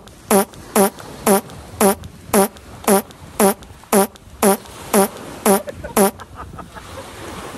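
A cartoon-style comic sound effect: a short pitched blare repeated about a dozen times at an even pace of about two a second, stopping about six seconds in.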